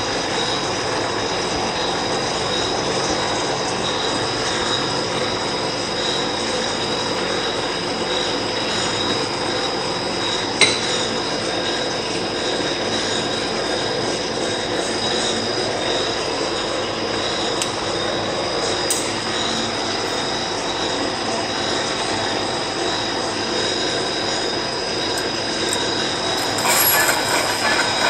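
Monarch metal lathe running with its workpiece spinning: steady machine noise with a high, steady whine on top. A single click about ten seconds in, and near the end a louder, harsher high-pitched noise joins in.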